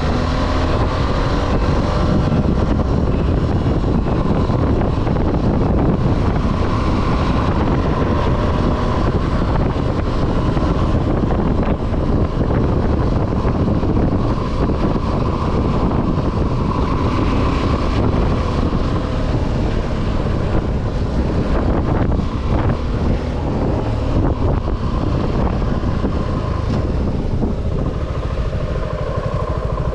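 Suzuki V-Strom 250 SX's single-cylinder engine running steadily under way, mixed with heavy wind rushing over the camera microphone.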